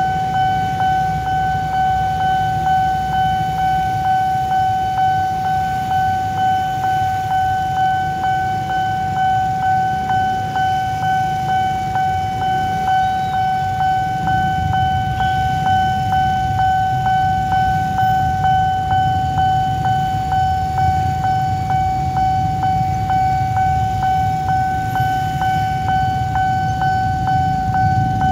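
Railway level-crossing warning alarm sounding a steady high tone that pulses at a quick regular beat, over the low running of waiting motorbike engines.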